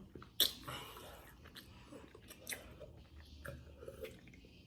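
A person chewing food close to the microphone in a mukbang, with a sharp bite or crunch about half a second in, followed by scattered smaller mouth clicks and chewing.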